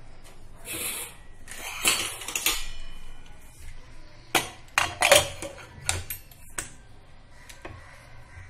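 Steel pressure cooker and its lid being handled: a couple of scraping, rushing noises in the first three seconds, then a series of sharp metallic clanks as the lid is put on.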